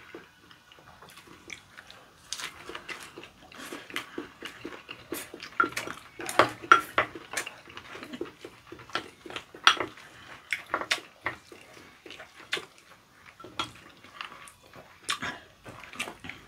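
Spoons clinking and scraping in ceramic bowls as rice and squid sashimi are stirred and scooped: many short, irregular clicks and scrapes.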